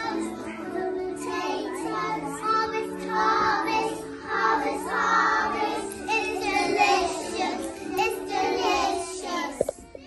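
A group of young children singing a song together in unison. A couple of sharp knocks near the end.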